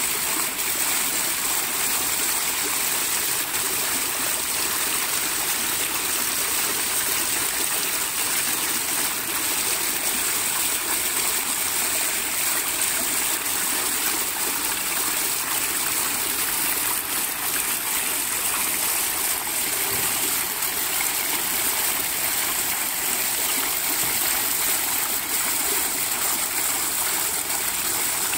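Decorative fountain running steadily: water pouring down a wall-like water curtain and a row of small foaming jets splashing, a continuous even rush of water.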